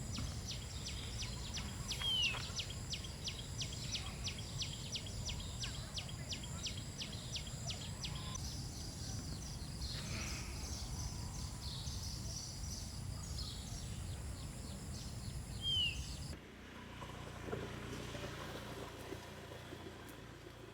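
Outdoor rural ambience: a steady high insect drone over a low rumble, a rapid ticking call about two or three times a second through the first half, and two short bird chirps. The background changes abruptly about three-quarters of the way through.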